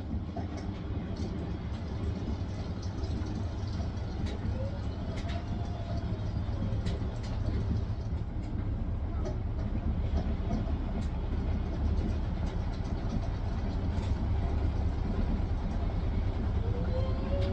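Hisense washing machine on its spin cycle: a steady low rumble from the spinning drum, growing gradually louder, with a faint whine that glides up and back down in pitch and rises again near the end, and a few light clicks.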